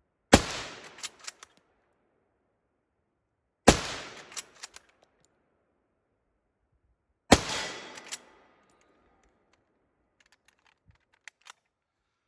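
Three 6.5mm bolt-action rifle shots, about three and a half seconds apart, each with a short ringing tail and a few faint clicks after it.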